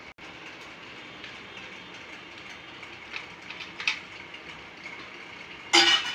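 Light clinks as cut fruit pieces and small steel cups are set on a plate, over a steady background hiss, with one brief loud clatter near the end.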